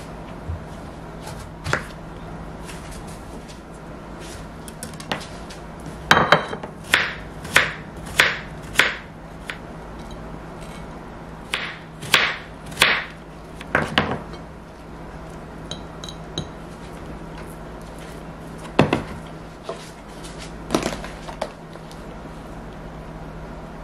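Knife slicing an apple on a wooden cutting board: short, sharp knocks each time the blade meets the board, coming in quick runs of four to six with pauses between.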